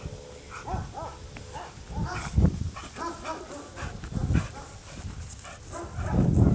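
Australian cattle dog giving a string of short, high-pitched whines and yips while heeling, with a few low thumps in between.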